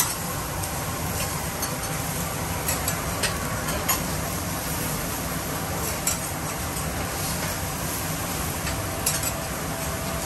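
Okonomiyaki cooking on a large steel teppan griddle: a steady sizzle, with a metal spatula clicking and scraping against the hot plate a handful of times.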